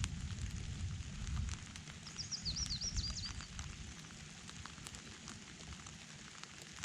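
Rain falling steadily with many small drip ticks, while a low rumble of thunder dies away in the first second or two. A bird gives a quick run of high chirps about two seconds in.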